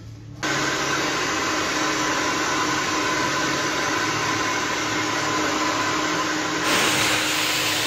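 Two handheld hair dryers blowing on hair, a steady rush of air with a motor hum. The noise cuts in abruptly about half a second in and turns louder and brighter near the end.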